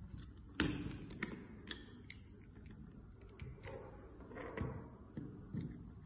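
Plastic parts of an AFMAT PSX6-9 electric pencil sharpener's blade assembly clicking and knocking as they are taken apart and set down by hand. There is a sharp clack about half a second in, then scattered lighter clicks.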